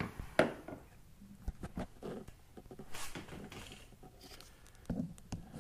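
Scattered light clicks, taps and rustles of hands handling and compressing a new hood gas strut at the hinge of a car's open hood, with a brief rustle about three seconds in.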